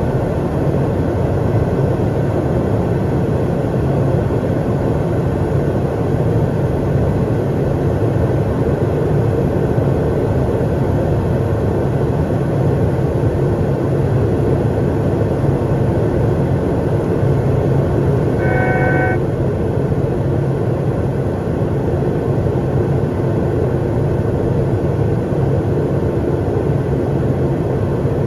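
Steady cockpit noise of an Eclipse 500 very light jet in flight: its twin aft-mounted turbofans and the airflow over the cabin. A brief electronic alert tone sounds once, about two-thirds of the way in.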